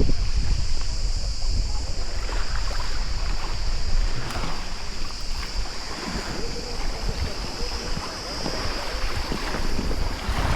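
Wind buffeting the microphone over water lapping and splashing around a stand-up paddleboard on the sea, with a steady high-pitched hiss throughout.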